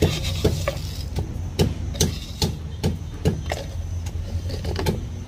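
Pestle pounding field crabs in a mortar: dull, even thuds about two to three a second, over a steady low hum.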